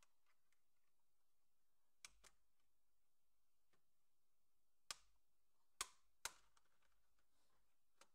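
Scattered sharp plastic clicks and snaps, about six, the loudest three close together about five to six and a half seconds in: the keyboard surround of a Lenovo ThinkPad S230u Twist being pried off with a plastic pry tool, its clips popping loose.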